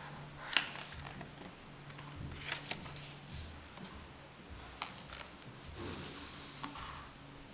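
Pages of a hardcover picture book being turned and the book being closed and turned over: soft paper rustles with a few light taps, and a longer rustle about six seconds in.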